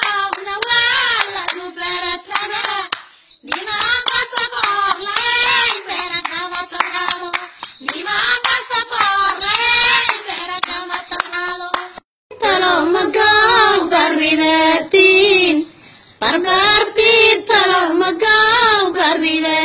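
Somali dhaanto song: singing in repeated phrases to rhythmic hand-clapping, growing louder about two-thirds of the way through.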